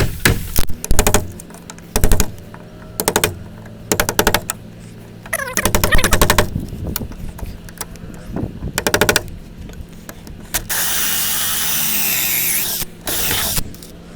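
Power drill with a 2 1/8 inch hole saw boring through a wooden 2x4, run in a series of short bursts of rapid pulsing, then one steady run of about two seconds near the end.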